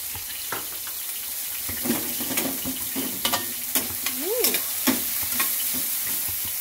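Sliced onions and vegetables sautéing in a stainless steel frying pan: a steady sizzle, with a metal spoon scraping and clicking against the pan several times as it stirs.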